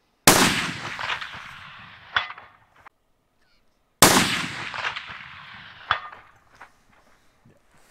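Two shots from a large-calibre long-range rifle, about four seconds apart, each a sharp crack with a long echoing decay. Just under two seconds after each shot comes a short metallic ring: the bullet striking a steel gong at about 426 metres.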